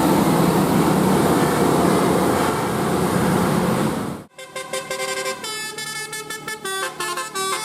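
Loud, noisy bus and traffic din with a vehicle horn sounding, which cuts off abruptly about four seconds in. An electronic melody of stepping notes over a beat follows.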